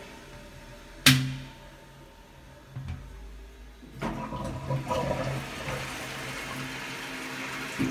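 Toilet flushing: water running in the cistern and bowl, with one sharp clack about a second in and the rush of water growing louder from about four seconds in.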